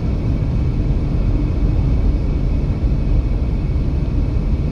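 Steady low road and engine noise of a car cruising on the interstate, heard from inside the cabin.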